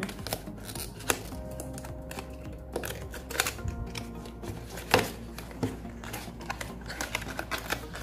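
A small cardboard retail box opened by hand: the tuck flap and card insert give irregular clicks, scrapes and rustles, with the sharpest snap about five seconds in. Soft background music plays underneath.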